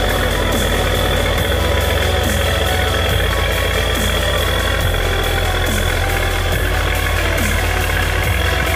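Boat engine running steadily under way on the river.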